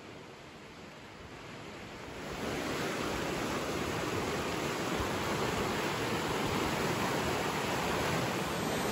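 Buckland River running, a steady rush of water that grows louder about two seconds in and then holds steady.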